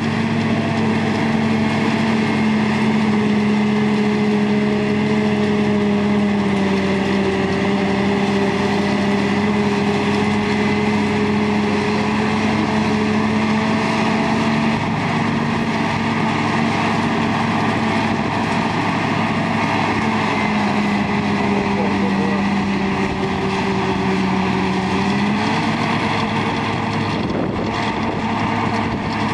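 Large farm diesel engine of harvest machinery running steadily at working speed. Its pitch dips slightly a couple of times and comes back up, as with changing load.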